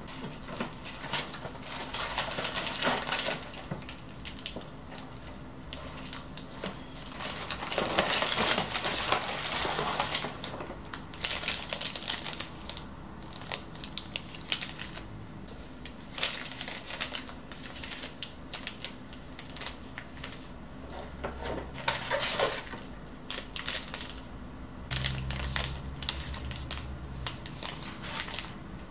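Paper and foil packaging being handled: a paper gift bag, tissue paper and foil-wrapped sachets rustling and crinkling in irregular bursts, loudest about eight to ten seconds in.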